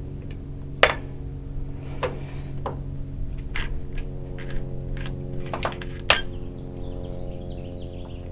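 Sharp metallic clinks and taps of small metal lock parts being handled, about seven in all at uneven intervals, over a steady low hum.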